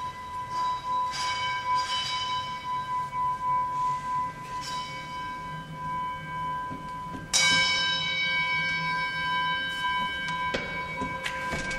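Bell-like metallic tones, struck several times and left ringing, over one steady high tone held throughout; the loudest strike comes a little past the middle.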